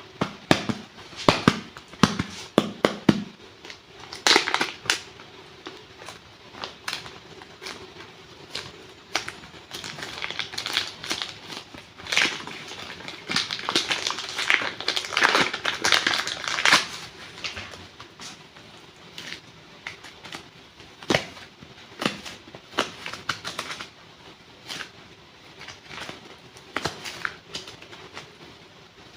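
Waxed clay packs being unboxed and squeezed by hand: the wax crust and wrapping crunch and crackle in quick, irregular clicks, thickest about halfway through.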